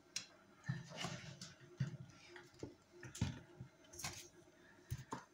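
Scattered light clicks and taps, about a dozen at irregular intervals: carrot sticks being laid and pushed about by hand in a frying pan, and a plastic bottle being moved. The loudest knocks come about three and four seconds in.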